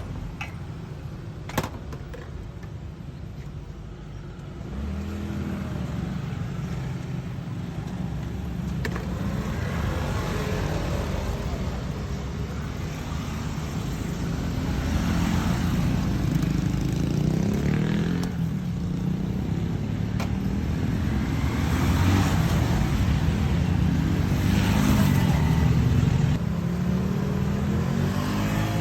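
Motor vehicle engine running over a steady road rumble, its pitch rising and falling again and again as it speeds up and slows. There is one sharp click about one and a half seconds in.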